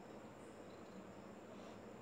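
Near silence: faint steady room tone with a thin, steady high-pitched whine.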